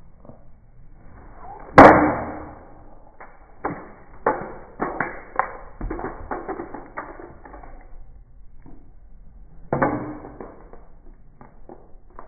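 A loud bang with a short ringing tail about two seconds in, then an irregular run of sharp knocks and clatters over the next few seconds, and a second bang with a ringing tail near the end, followed by a few lighter knocks.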